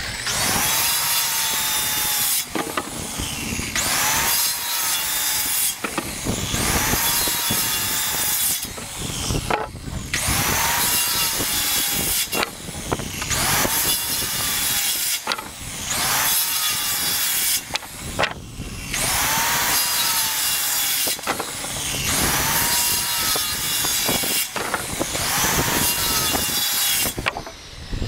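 DeWalt circular saw cutting across lumber boards, about ten cuts in a row with short pauses between. Each cut is a couple of seconds of motor whine and blade rasping through the wood.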